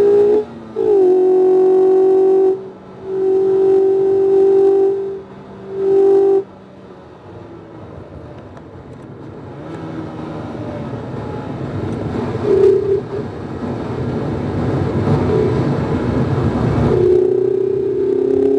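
Inside a 2019 Mazda MX-5 RF on track: the tyres squeal with a loud steady tone for the first six seconds, breaking off and catching again three times. Then the car's engine and road noise build steadily as it accelerates, and the squeal returns near the end, rising slightly in pitch.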